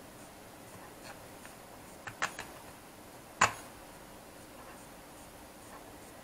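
Small sharp plastic clicks as the antenna fitting and plastic shell of a drone remote controller are handled: a quick cluster of three about two seconds in, then one louder click about a second later.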